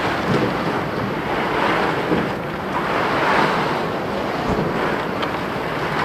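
Jacket fabric rubbing and buffeting over a pocket-held camera microphone as the wearer walks, a loud rushing noise that swells and eases.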